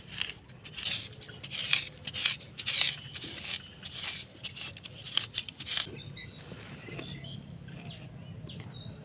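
A bamboo stick scraping and digging into dry, crumbly soil around the base of a sesbania plant, loosening it to expose the roots, in a quick series of scratchy strokes that stop about six seconds in.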